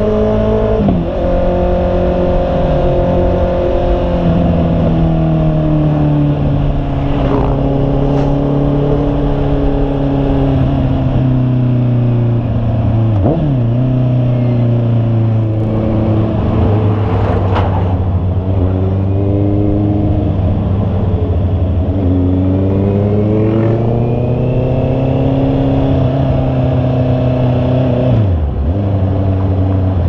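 Honda CB650R's inline-four engine running while riding, heard from the bike. Its pitch holds, sinks slowly, then climbs again as the revs change, with brief sharp dips about a second in, near the middle and near the end.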